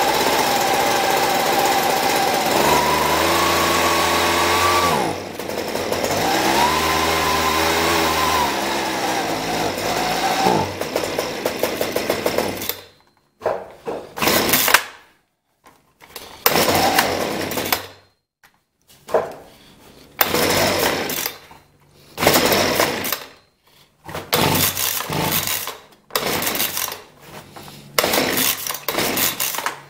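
Husqvarna 125B leaf blower's 28 cc two-stroke engine running, revved up and back down twice, then dying about twelve seconds in. After that comes a run of about ten quick starter-cord pulls, each a short burst of cranking, and the engine does not keep running. The carburetor has just been rebuilt and air is still in the fuel line.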